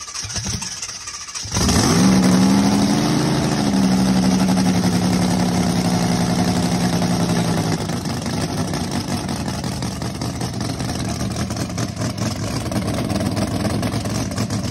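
Fuel-injected alcohol 454 big-block Chevy V8 cranking, then firing about a second and a half in and running loud, with a brief rise in revs before it settles to a steady idle. From about eight seconds its note turns less even. The engine is catching after flooding.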